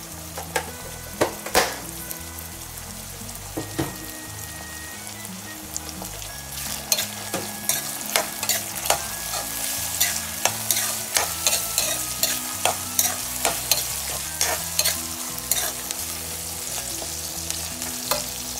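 Chopped onion and tomato sizzling in oil in a pan while a metal spoon stirs them, clinking and scraping against the pan. The clinks come faster and more often from about seven seconds in.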